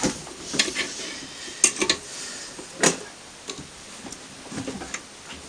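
Sharp metallic clicks and small taps of steel valve parts being handled and fitted into a Moskvich 412 cylinder head, with the two loudest clicks about a second apart near the middle.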